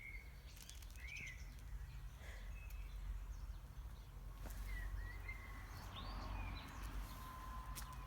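Faint ambience: a steady low rumble with a few scattered short bird chirps.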